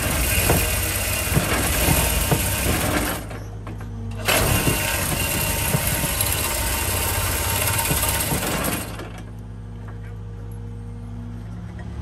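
Excavator running hard with hydraulic load and rattling from its attachment and hanging chain. It eases off briefly about three seconds in, then drops to a quieter, steady engine hum about nine seconds in.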